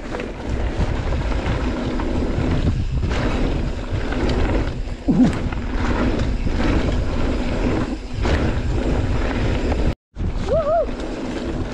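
Wind buffeting a mountain biker's action-camera microphone, with tyre noise and knocks and rattles from the bike over rough trail. The sound cuts out briefly about ten seconds in.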